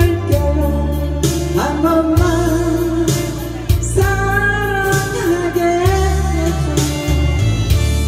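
A woman sings a Korean trot song live into a microphone, accompanied by acoustic guitar over sustained low bass notes.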